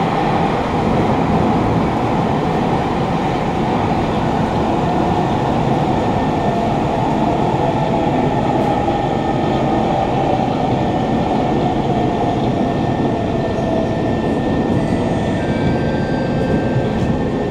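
A Kawasaki Heavy Industries C151 metro train (GTO-VVVF variant) running through a tunnel, heard from inside the carriage. Its wheels and traction motors make a loud, steady rumble, and a few thin high tones come in near the end.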